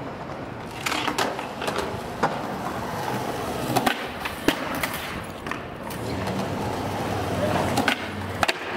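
Skateboard wheels rolling on pavement with a steady low rumble, broken by several sharp clacks of the board striking the ground.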